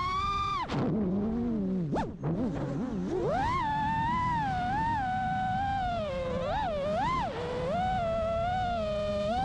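FPV quadcopter's brushless motors whining, the pitch rising and falling with the throttle. About a second in the throttle is chopped and the whine drops low, then it climbs back sharply about three seconds in, with a couple of quick throttle blips near the end.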